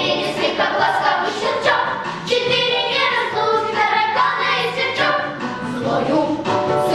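A group of young girls singing a song together as a children's vocal ensemble.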